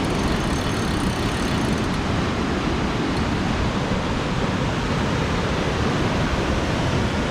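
Steady rushing noise of wind and surf, heaviest at the low end.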